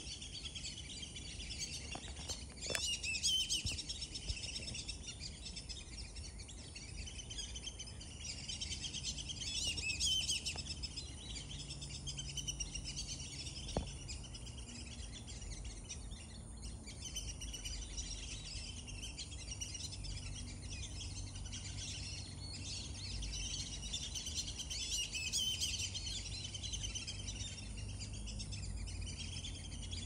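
A flock of black-bellied whistling ducks calling: a dense, unbroken chatter of high whistles. It swells louder about three seconds in, again around ten seconds, and near twenty-five seconds.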